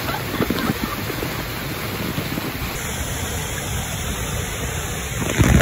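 Waterfall pouring straight down onto the camera: a steady, loud rush of falling water and spray, with a heavier surge of water hitting the microphone near the end.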